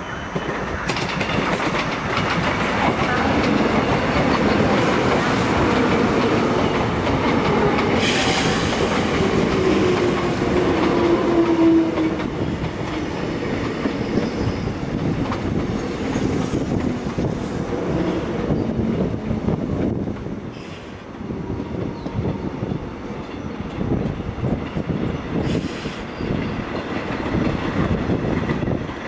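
Electric commuter train passing close by: a steady rolling rumble with wheels clacking over the rail joints, and a whine that glides down in pitch about ten seconds in as the cars go past.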